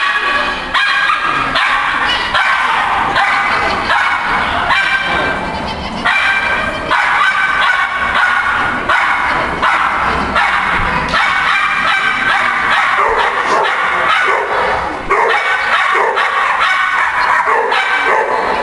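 Schipperke barking over and over in a rapid string of sharp, high barks while running an agility course.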